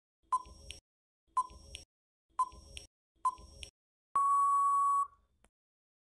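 Countdown timer sound effect: a short beep about once a second, four times, then a longer steady beep lasting about a second as the count runs out.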